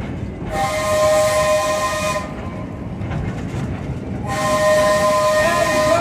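Horn of the park train's Porter diesel-hydraulic locomotive sounding two long, steady blasts a couple of seconds apart, several pitches together, over the low running rumble of the moving train.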